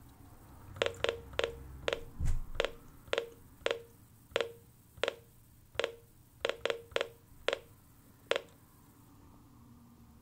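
Reecom R1650 weather alert radio giving a short key beep with each press of its scroll button, about fifteen beeps at uneven intervals over some eight seconds as it steps through its list of alert event codes, with a soft thump about two seconds in.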